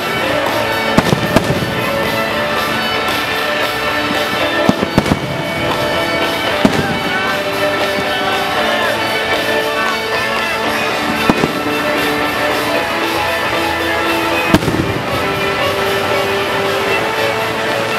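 Aerial fireworks shells bursting with sharp bangs: a quick cluster in the first couple of seconds, a few more about five seconds in, then single bangs further apart. Music plays steadily underneath.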